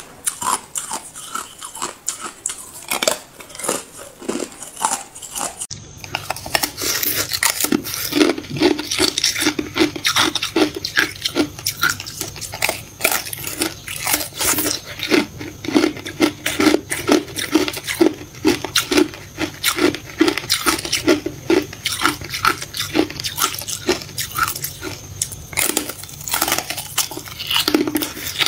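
Thin ice being bitten and chewed close to the microphone: dense, brittle crackling snaps with a steady rhythm of chewing crunches about three a second. About six seconds in the sound changes abruptly and a faint low hum comes in underneath.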